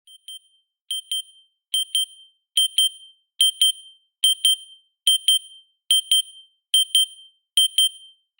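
Timer alarm going off as the 30-minute countdown ends: a high electronic double beep, beep-beep, repeating a little faster than once a second. It starts soft and grows louder over the first few seconds, then holds steady.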